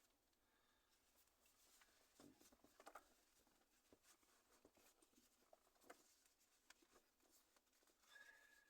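Very faint rustling and light clicks of a plastic adhesive sun visor strip being handled, the busiest stretch about two to three seconds in.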